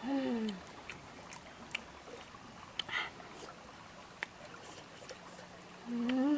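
Shallow stream water trickling, with two short pitched voice-like calls: one sliding down in pitch at the start and one rising then falling near the end. A brief hissy sound comes about three seconds in.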